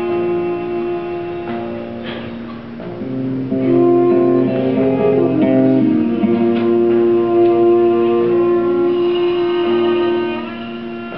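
Live instrumental music: a violin playing a melody in long held notes over acoustic guitar accompaniment, getting a little quieter near the end.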